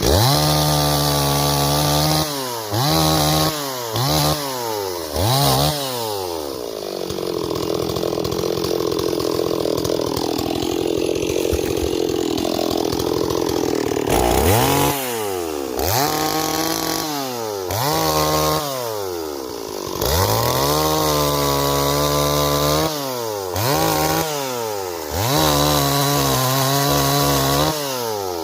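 Stihl 026 chainsaw's two-stroke engine repeatedly revved up to high speed and let fall back to idle, with one longer run held at high revs from about six to fourteen seconds in. The saw is running again.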